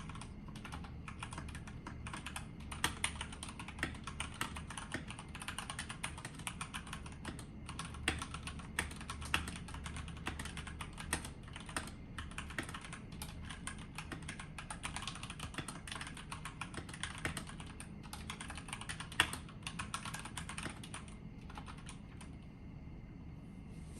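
Continuous fast typing on a stock GK96S mechanical keyboard with Gateron Brown tactile switches and ABS keycaps, a dense patter of key clacks. The typing stops near the end.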